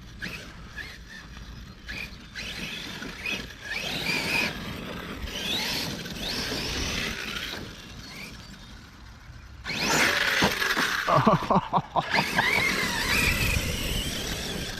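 Arrma Kraton 6S BLX RC truck's brushless motor whining, rising and falling in pitch with bursts of throttle. About ten seconds in comes a run of rapid clattering knocks, the loudest part.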